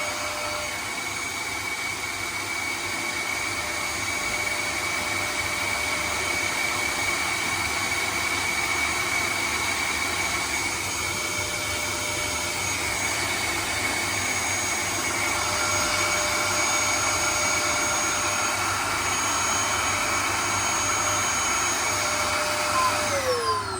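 Vacuum cleaner running steadily, a constant rush of air with a high motor whine; near the end it is switched off and the whine falls away as the motor spins down.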